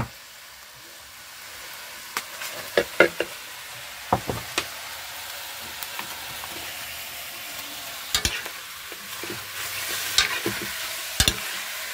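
Meat sizzling as it fries in a cast-iron pot, a steady hiss that grows a little louder, while a metal spoon stirs it with sharp scrapes and knocks against the pot.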